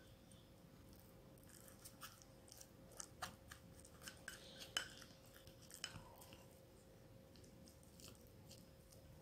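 A spoon stirring chickpea flour and rose water into a paste in a ceramic bowl: faint scraping and light clicks against the bowl, busiest in the middle few seconds, with one sharper tap near the middle.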